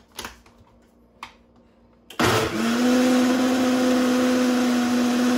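A few light clicks, then about two seconds in a countertop blender's motor starts, winds up quickly and runs at a steady whir. It is blending a thick mix of soymilk, bananas, roasted peanuts and oatmeal.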